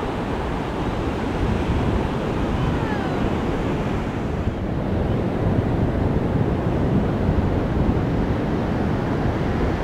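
Ocean surf washing on a beach in a steady rush, mixed with wind buffeting the microphone.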